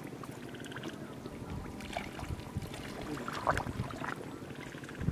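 Hands working through shallow muddy water and mud, sloshing and squelching, with a few sharper splashes about three and a half seconds in.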